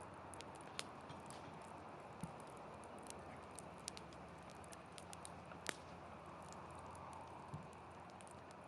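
Wood fire burning in a fire pit: a faint steady hiss with scattered sharp crackling pops, the loudest about halfway through.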